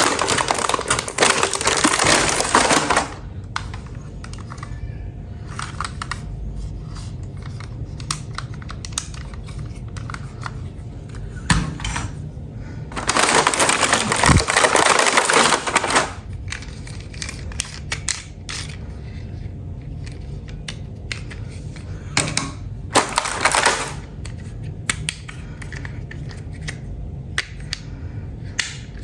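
Small hard plastic pieces clicking and clattering as toys are handled, with three stretches of crinkling, rustling noise: about three seconds at the start, a longer stretch around the middle and a short one near the end.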